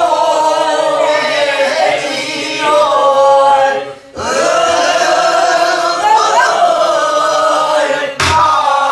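A small group of men and women singing a Namdo folk song together in Korean traditional style, with a short break for breath just before four seconds in. A buk barrel drum is struck as the singing comes back in, and again near the end.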